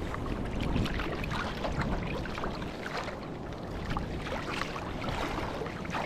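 Choppy lake water splashing and lapping against a kayak in irregular little slaps, over a steady low wind rumble on the microphone.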